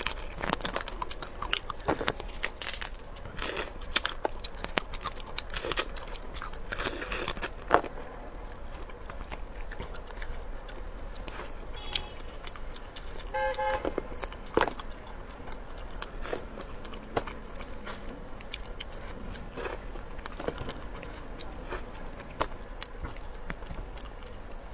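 Close-miked eating sounds: irregular crackles and clicks as seafood shells are cracked and pulled apart by hand, with chewing.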